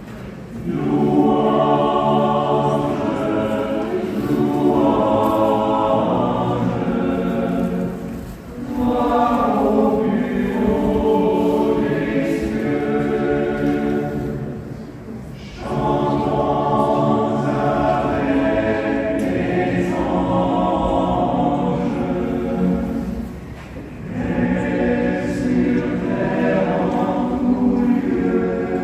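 A choir singing slow, sustained phrases, each about seven seconds long, with a short break between them.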